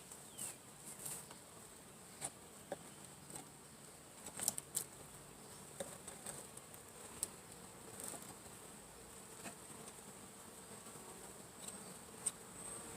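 Honeybees buzzing as a faint, steady hum, with scattered light ticks and taps throughout.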